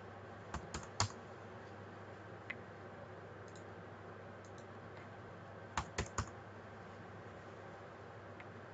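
Computer keyboard keys and mouse buttons clicking in two short clusters, three quick clicks about a second in and three more around six seconds, with a faint single click between them. A steady low hiss runs underneath.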